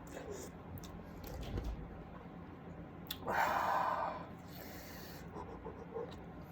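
A person eating noodles: faint scattered clicks and, about three seconds in, a noisy breathy sound lasting about a second.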